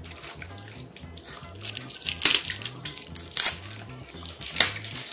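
Plastic-wrapped drinking straw being pulled off a juice box and its wrapper torn open, with sharp crinkling crackles about two, three and a half, and four and a half seconds in. Background music with a steady beat runs underneath.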